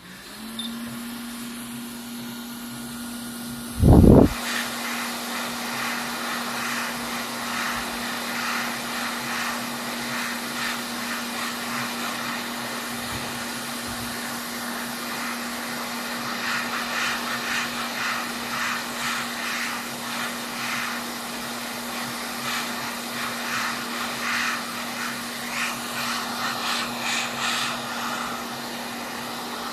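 A small electric blower running steadily with an even hum and hiss, with faint crackling over it in the later part. A single loud thump about four seconds in.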